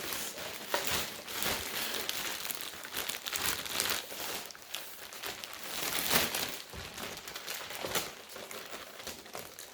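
Plastic packaging bag crinkling and rustling as a Roomba robot vacuum is worked out of it by hand, with many sharp crackles. The bag is tight and hard to get the robot out of.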